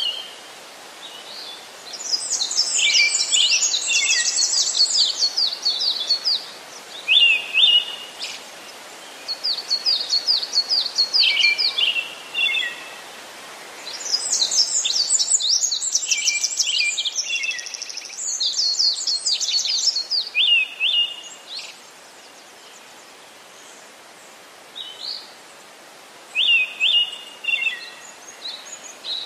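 Birds singing: repeated phrases of quick high chirps and trills separated by short pauses, over a faint steady hiss, with a quieter lull a little past the middle.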